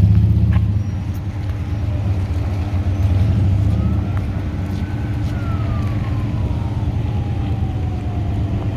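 An emergency vehicle siren wailing: its pitch rises about four seconds in, falls slowly over the next few seconds, and starts to rise again at the end. It sounds over a steady low rumble.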